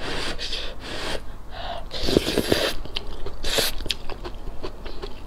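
Close-up slurping of noodles from a soup, with chewing and wet mouth clicks. Several airy slurps come one after another.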